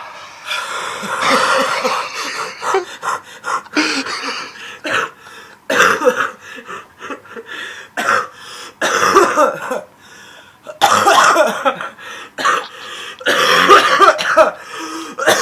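A sick person coughing hard and repeatedly, in a run of loud coughing fits of several harsh coughs each, separated by short pauses.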